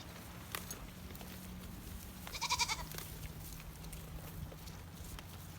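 A single high-pitched bleat from a goat or sheep, about half a second long, a little over two seconds in, with faint scattered clicks around it.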